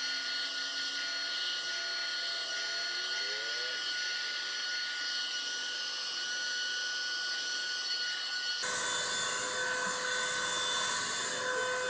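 Revlon One-Step hair dryer brush running: a steady blowing whir with a thin high whine on top. The noise changes character abruptly about eight and a half seconds in.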